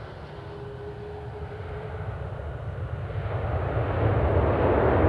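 Airbus A330-243 with Rolls-Royce Trent 700 engines rolling out just after touchdown: a low rumble that swells from about three seconds in into a loud, rising rush as the engines spool up, typical of reverse thrust on the landing roll.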